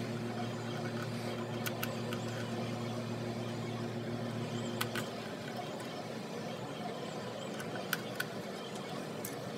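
A few small, sharp clicks of a hex driver and screws working against a quadcopter's plastic frame as the landing-gear bolts are driven in. Under them runs a steady low hum that stops about halfway through.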